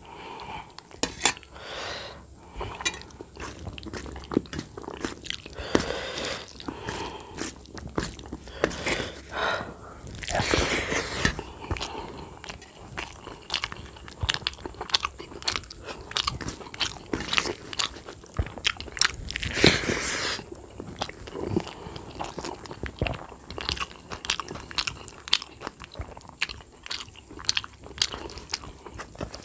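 A man eating rice and curry by hand: wet chewing and lip smacks in quick, uneven clicks, with his fingers squishing and mixing rice on a steel plate. Two longer, louder stretches of noise come about ten and twenty seconds in.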